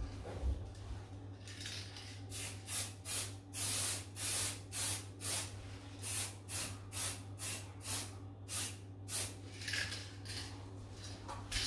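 Aerosol spray paint can spraying in short repeated bursts of hiss, about two a second, starting about a second and a half in, with one longer spray around four seconds in.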